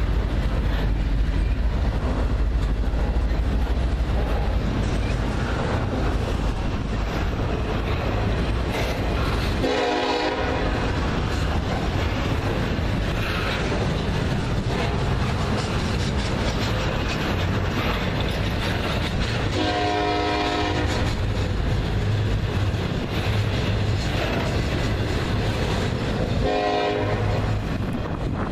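Freight cars of a slow intermodal train rumbling and clattering by on the rails, while a diesel locomotive's air horn sounds three blasts. The first comes about a third of the way in, the second about two-thirds in, and a shorter one near the end.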